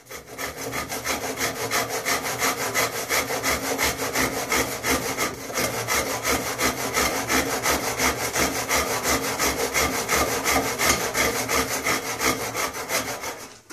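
Handsaw cutting into a wooden wheel spoke close to the nave, in quick, even back-and-forth strokes that stop near the end. This is the small, shallow saw cut that starts the removal of the spoke from the nave.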